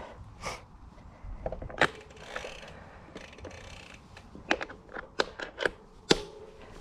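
Scattered sharp mechanical clicks and ticks from a road bike being adjusted by hand at the front derailleur, with a quick run of five or six clicks about four and a half to six seconds in.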